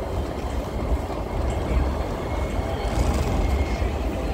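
Outdoor city street ambience: a steady low rumble with voices of people talking in the background.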